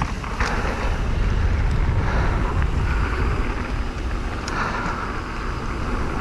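Wind buffeting the microphone: a steady low rumble with hiss over it, broken by a couple of faint clicks.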